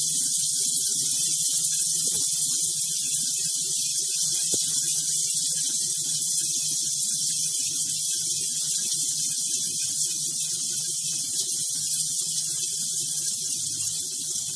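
Potato, onion and spice masala frying in oil in a wok with freshly added tomato and green chilli, giving a steady, even sizzle.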